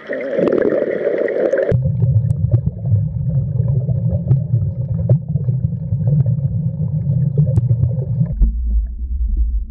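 Deep, steady rumbling drone with a gurgling, underwater quality. A brief mid-range wash at the start gives way abruptly to the rumble about two seconds in, and the rumble drops abruptly to a lower pitch near the end.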